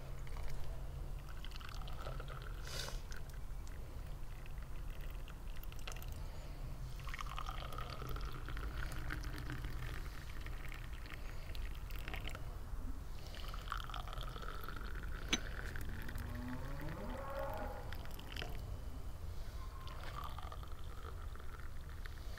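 Liquid being poured into a vessel in a few separate pours, its pitch rising as it fills, over a steady low hum.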